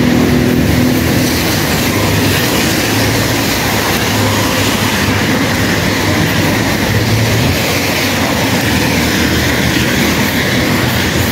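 Loud, steady wind and rain noise, with an uneven low rumble of wind buffeting the microphone.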